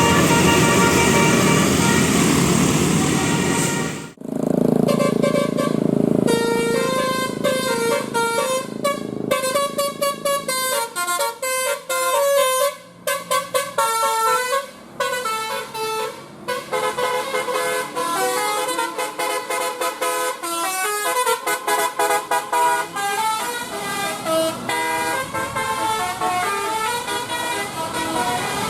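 Indonesian bus telolet horn: a multi-tone air horn playing a quick tune of short notes that step up and down in pitch. It opens with about four seconds of a louder, noisier sound that cuts off abruptly before the tune.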